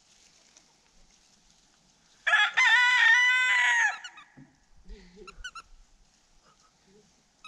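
A rooster crows once, a loud crow of about a second and a half that rises in steps, holds a long note and drops at the end.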